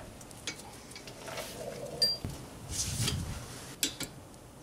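Scattered metal clicks and clinks of a ratchet wrench and socket on a rear brake caliper bolt, with one sharp click about two seconds in.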